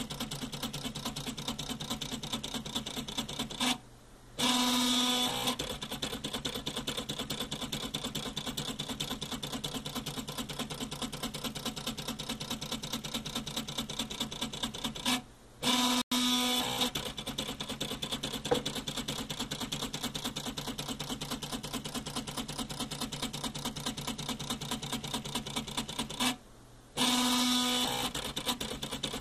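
Homemade CD-drive dot matrix printer running: the CD-tray opening mechanism taps the pen down in a fast, even run of clicks while the CD sled stepper motors step the paper and pen across. Three times a brief pause is followed by about a second of louder, steadier motor whirr as the printer moves to start a new line.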